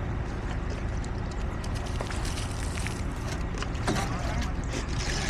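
Heavy construction machinery running: a steady low engine rumble with scattered clicks and knocks over it.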